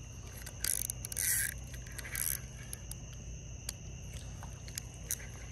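Three short scrapes, about half a second apart, from fishing gear being handled, over a steady high drone of night insects.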